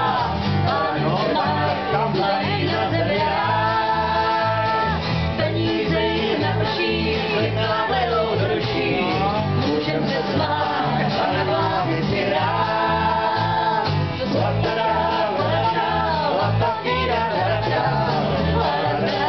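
Live country-style band: strummed acoustic guitar over a steady electric bass line, with singing and long held notes.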